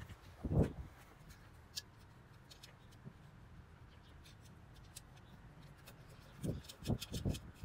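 Light clicks and dull knocks of hands working a nut onto a braided engine ground strap, with a quick run of three or four knocks near the end.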